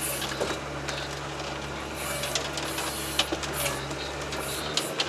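Articulated wheeled all-terrain vehicle driving over snowy swamp, heard from inside the cab: a steady low engine drone with irregular clicks and rattles. The low drone eases off near the end.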